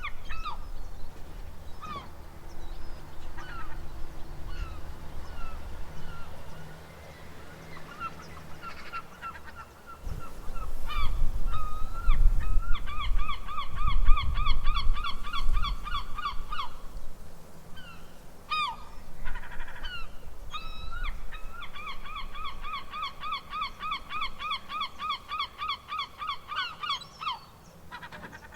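Seagulls calling: scattered single squawks, then two long runs of rapid, repeated yelping notes, several a second. A low rumble sits underneath, strongest in the middle.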